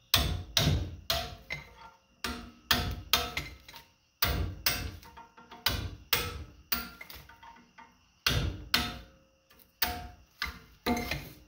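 Repeated sharp metal strikes, about two a second in short runs with brief pauses, each ringing briefly, as copper bars are knocked loose from the slots of a large electric motor armature.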